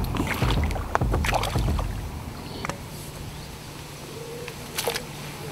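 Shallow lake water splashing and sloshing as a hooked carp is played in and netted in the margins; the splashing is heaviest in the first two seconds, then quieter, with one sharp splash near the end.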